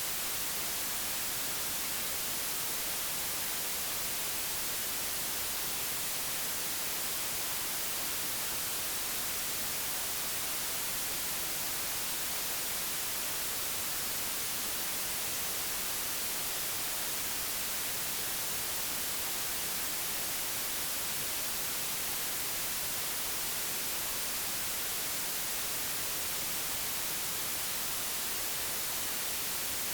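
Steady, unchanging digitally generated white noise: an even hiss across all pitches, strongest in the highs.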